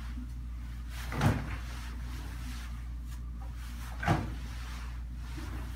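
Two sharp knocks, about three seconds apart, from the metal door and drum of a front-loading clothes dryer as laundry is loaded, over a steady low hum.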